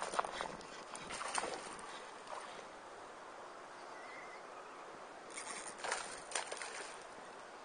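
Water splashing at the surface of a stream where a fishing line enters it, in short bursts near the start, again about a second later, and in a cluster between about five and seven seconds in.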